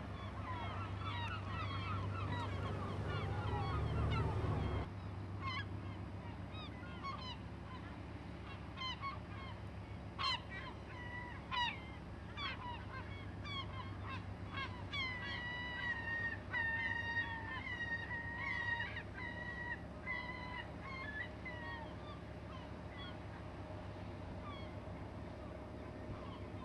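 A flock of gulls calling over and over, many short overlapping cries with a few longer held calls, above a steady low engine drone that drops off sharply about five seconds in.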